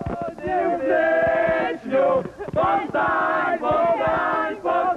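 A group of young men and women singing together in loud, held sung phrases, with short breaks between the lines.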